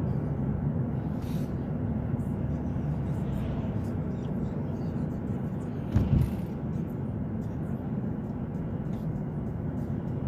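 Steady road and engine noise inside a moving car's cabin, with a single thump about six seconds in.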